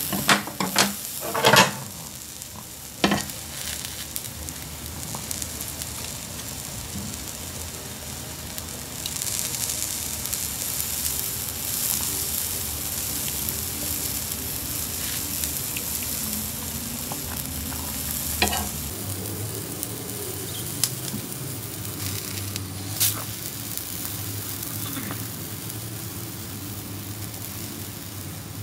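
Food sizzling in a pan, a steady crackling hiss, with a few sharp clicks near the start and twice more later on.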